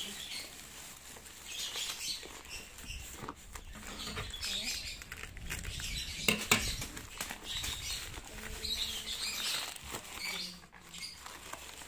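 Plastic parcel wrapping rustling and crinkling as it is pulled and torn open by hand, with scattered light knocks against the table and one sharper knock about six seconds in.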